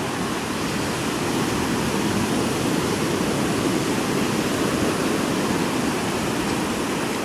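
Ocean surf washing onto a beach: a steady rushing noise that swells slightly in the middle.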